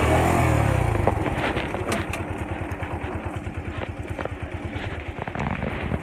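Small motorcycle engine easing off as the bike slows, then running at low revs with an even low pulsing and a few light rattling clicks.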